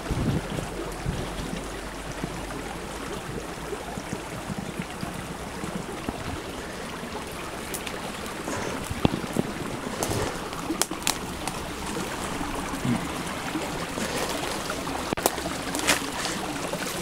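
Steady rush of a river flowing, with occasional snaps and rustles of dry twigs and brush as someone moves through it.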